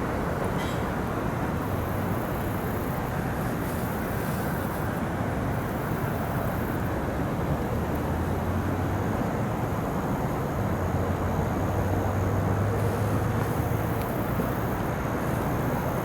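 Steady rumble of passing vehicles, with a low hum that swells slightly about two-thirds of the way through.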